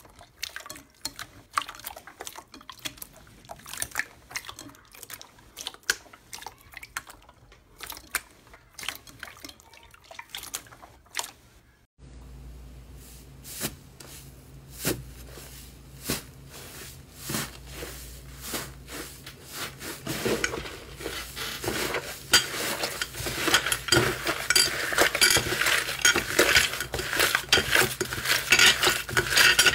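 Hands squishing slime in a glass bowl: first a clear jelly slime making sparse wet clicks and pops. Then fingers press into and tear apart a thick, crumbly foam slime, the crackling growing denser and louder over the last third.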